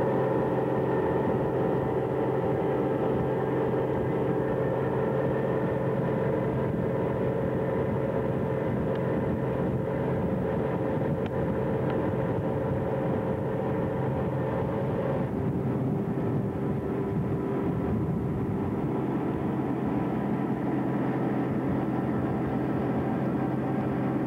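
M/S Nordland's engine running steadily, a drone made of several steady tones over a rumble. About two-thirds of the way through, the tone pattern shifts slightly while the loudness stays the same.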